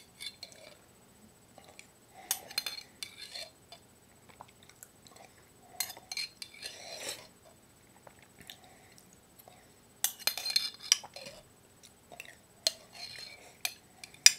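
A spoon clinking and scraping inside a glass jar of pasta sauce, in about four short bouts a few seconds apart.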